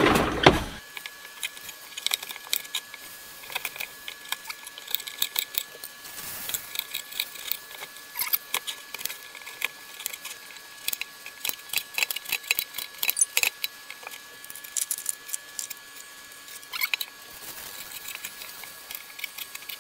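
Kitchen knife chopping carrot and potato on a cutting board: irregular sharp taps of the blade on the board. A short, louder clatter from the cutlery drawer comes at the very start.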